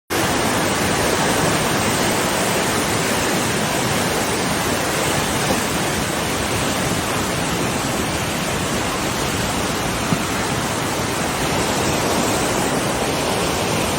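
Steady, loud rushing of a waterfall, an even hiss of falling water with no change throughout.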